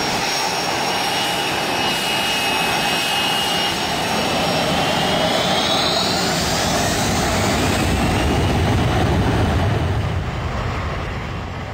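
Jet-engine-like rushing noise with high whines that shift in pitch around the middle, building to its loudest near the end and then fading away.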